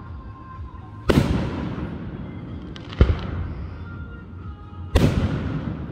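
Aerial firework shells bursting: three loud booms about two seconds apart, each trailing off in a rumble.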